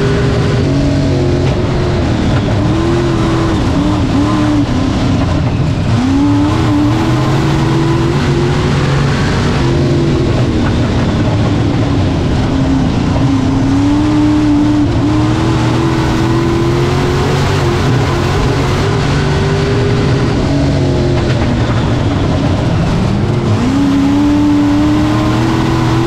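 Dirt-track stock car's engine running hard, heard from inside the cockpit. Its pitch rises and falls as the car accelerates on the straights and lifts for the turns, with a clear climb near the end, over a steady rush of noise.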